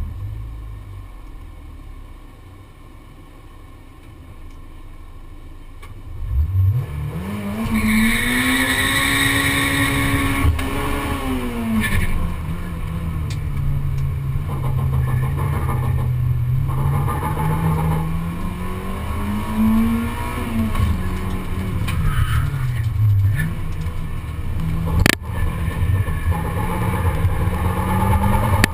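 Honda Civic race car's four-cylinder engine heard from inside the cabin. It runs low and quiet for the first six seconds or so, then revs up sharply as the car sets off. After that its pitch rises and falls as it is driven hard, with a single sharp knock near the end.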